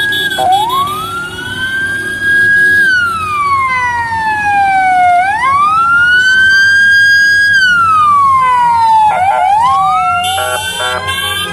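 Siren wailing: its pitch climbs quickly, holds at the top, then slides slowly back down, over about four cycles. Near the end, steady horn-like tones sound with it.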